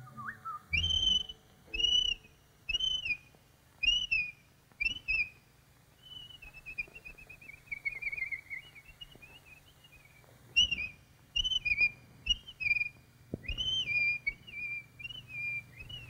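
Whistled bird calls on an old cartoon soundtrack. Short, high, arching notes come about once a second. In the middle a warbling run slides downward. Then the short notes come again and end on a long held note, over a faint steady hum from the old film sound.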